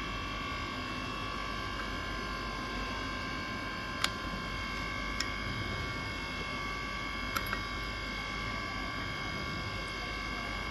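Steady hum with several steady whining tones, broken by a few light clicks about four, five and seven seconds in.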